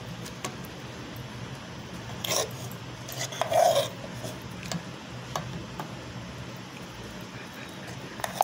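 Steel spoon scraping and lightly clinking against a stainless-steel bowl as thick, sticky rice halwa is spooned in, over a steady low hum. Two louder short sounds stand out, a little past two seconds and near four seconds in.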